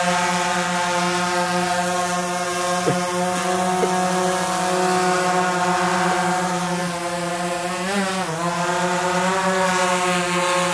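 Quadcopter drone hovering, its four propellers and motors giving a steady pitched buzzing whine. About eight seconds in the pitch dips and wavers briefly as the motors change speed, then it settles again.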